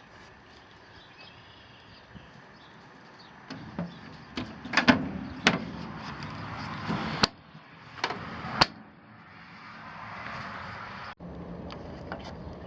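Hard plastic tool box being handled: a series of knocks and rubbing, with two sharp clicks in the second half.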